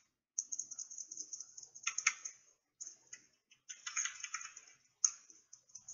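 Faint, quick clicking and tapping from a computer's controls being worked in short runs, over a steady high hiss.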